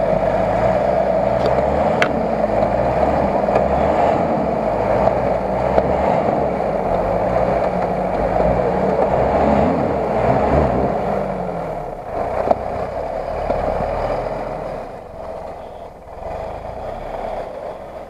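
Lada Niva's engine revving and labouring in deep mud, its pitch rising and falling, under a steady rushing noise of wheels churning mud. It eases off and gets quieter over the last few seconds.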